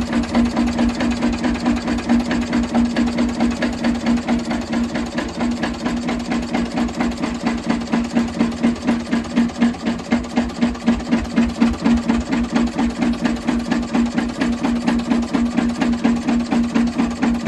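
An R.A. Lister stationary diesel engine driving a generator, running steadily with an even, regular beat of about four to five firing pulses a second under a steady hum.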